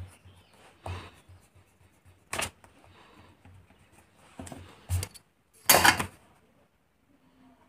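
Eraser rubbing on drawing paper in a couple of short strokes, then scattered rustles and taps on the paper, the loudest a brief scrape about six seconds in as a clear plastic ruler is laid on the sheet.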